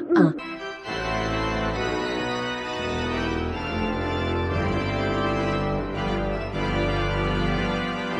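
Organ music playing sustained chords, starting about a second in.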